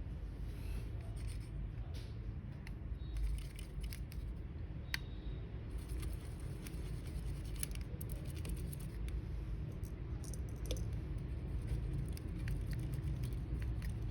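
Small scattered clicks and short scrapes of hand tools and small parts being handled, over a steady low hum.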